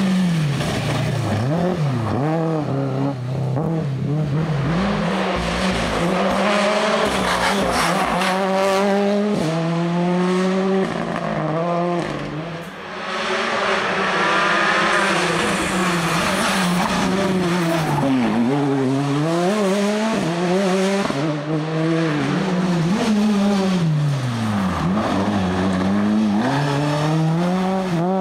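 Rally cars passing at speed one after another on a gravel stage: engines revving hard, rising and falling in pitch through gear changes and lifts, with tyres scrabbling and spraying loose gravel.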